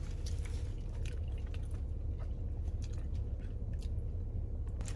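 A person chewing a mouthful of spinach in sauce with the mouth closed: soft wet mouth clicks and squishes over a steady low hum.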